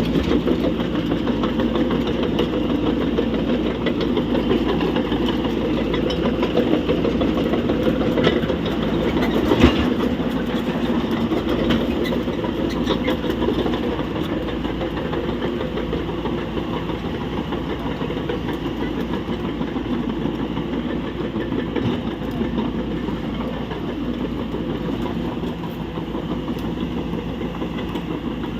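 Heavy diesel engine of construction machinery running steadily, with a single sharp knock about ten seconds in.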